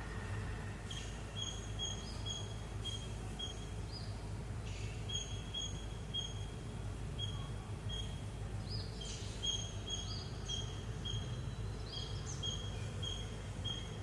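A small bird repeating short, high chirps in runs of several a second, with a few quick upward-sliding notes, over a steady low rumble.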